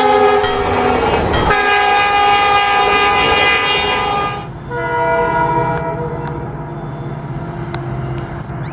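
Train horn sounding in long held chords that shift about a second and a half in and again at about four and a half seconds. A low steady rumble joins at about five seconds.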